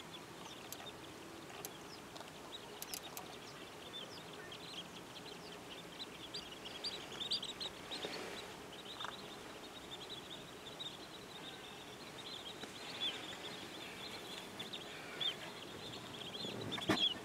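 Many short, high-pitched chirping calls from a flock of wetland birds over a steady outdoor background hiss; the chirping grows denser about six seconds in, and a brief louder sound comes near the end.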